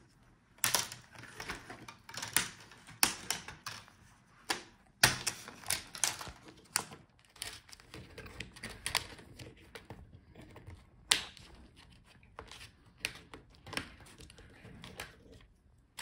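Plastic snap clips of a Dell Inspiron 15 3525's LCD front bezel clicking and popping loose as the bezel is pried off by hand: a string of irregular sharp clicks and snaps, thickest in the first half.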